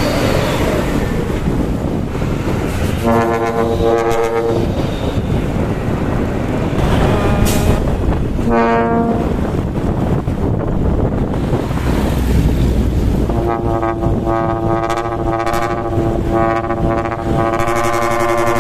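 Dump truck's trumpet air horn sounding over the heavy rumble of the truck's diesel engine. There are two short blasts, about a second each, around 3 and 8.5 seconds in. From about 13.5 seconds on a long held blast follows at a higher pitch.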